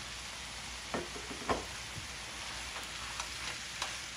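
Diced chicken breast and chopped onion sizzling steadily in hot oil in a nonstick frying pan, with a few sharp knocks of a cooking utensil against the pan, the loudest about a second and a half in.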